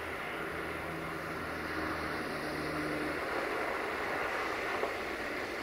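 Electroputere 060-DA (LDE2100) diesel-electric locomotive drawing slowly closer, its engine a steady low hum under a constant rushing noise. The engine's hum fades about three seconds in.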